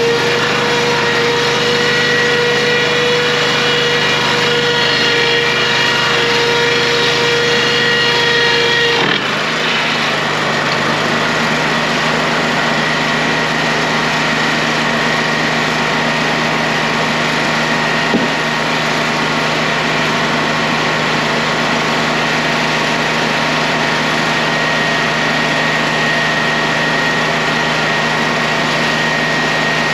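Sawmill machinery running steadily: a constant drone with a held whine, its tone changing about nine seconds in, and one short click around the middle.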